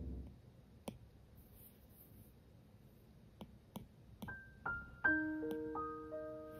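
Background piano music: the previous track stops at the start, and after a short lull a new piano piece begins with single notes about four seconds in, then a held chord.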